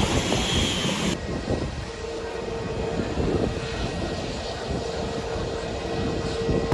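Airliner engines running, a steady rumble with a held whine; the sound changes abruptly about a second in.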